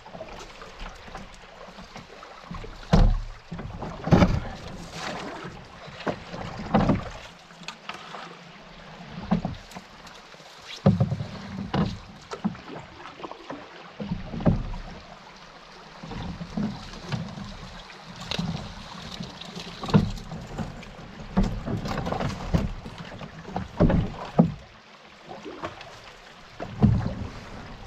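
Solo canoe paddling in an Esquif Echo, working upstream against the spring-melt current. Irregular paddle strokes come every one to three seconds, with splashes and sharp knocks of the paddle against the hull, over a steady hiss of moving water.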